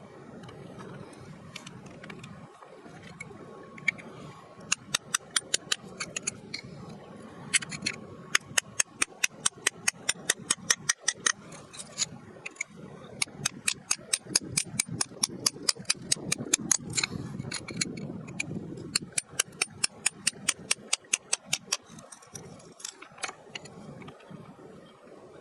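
A hand tool striking rock in quick, regular taps, about five a second, in several long runs with short pauses between them, over a low background rumble.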